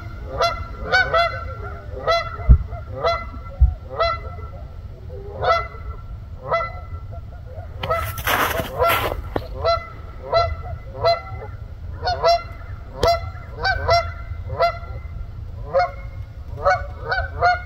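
Canada geese honking repeatedly, a flock calling about two to three times a second over a low steady rumble, with a brief rushing noise about eight seconds in.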